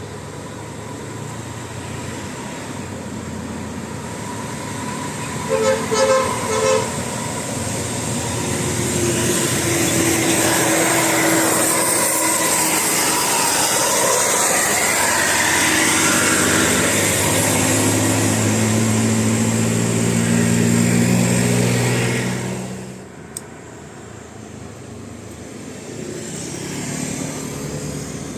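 Bus with a Basuri 'telolet' musical air horn: a short three-note toot about six seconds in, then loud bus engine and road noise with shifting horn tones for about a quarter of a minute, dropping away sharply near the end.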